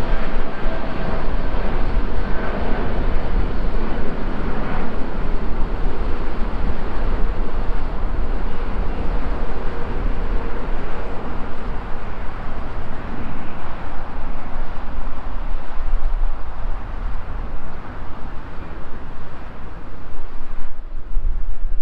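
Steady noise of jet airliner engines with low wind rumble on the microphone. A faint engine whine at the start fades within a few seconds, and the higher part of the noise drops off about a second before the end.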